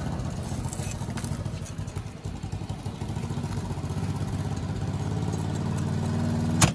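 An engine runs steadily in the background, with a few faint clicks. Near the end, a large knife chops once, sharply, down onto a wooden cutting board.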